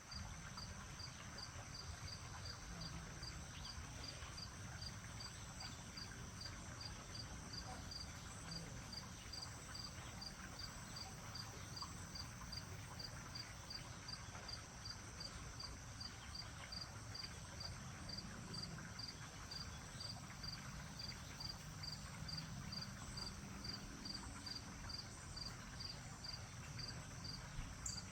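Crickets chirping in a steady, regular rhythm of about two chirps a second, over a low steady rumble.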